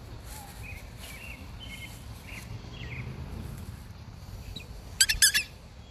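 Faint bird chirps, then a brief burst of high, quickly repeated squeaks about five seconds in.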